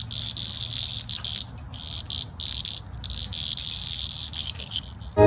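Shrill, steady insect chorus with several brief breaks, stopping abruptly near the end.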